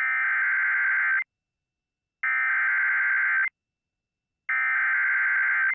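Emergency Alert System SAME header: three identical bursts of screechy, modem-like digital data tones, each a little over a second long with about a second of silence between. It is the machine-readable code that sets off weather radios and alert receivers, here for a severe thunderstorm warning.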